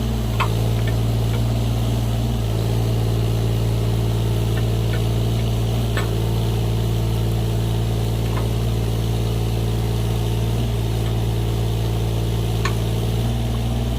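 Excavator's diesel engine running steadily at a constant speed, with its note shifting slightly a couple of times and a few faint sharp clicks over it.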